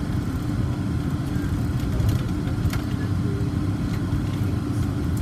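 Steady running noise of an AirTrain Newark Von Roll Mk III monorail car moving along its guideway, heard from inside the car: a continuous low rumble with a steady hum.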